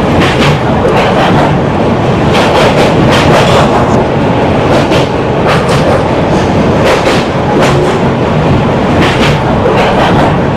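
HO scale model train, a WAP-7 locomotive pulling LHB coaches, running steadily along the track with a continuous wheel rumble and clicks over the rail joints roughly once a second.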